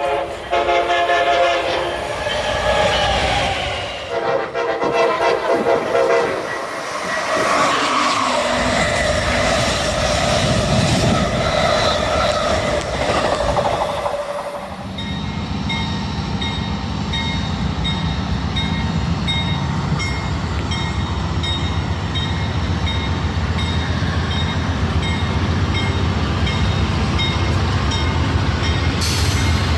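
Amtrak train horn sounding in several blasts over the first half. About halfway through the sound cuts to the steady low rumble of a train running past.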